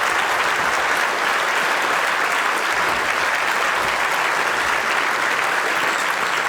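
Congregation applauding steadily, a dense even clapping that holds at the same level throughout.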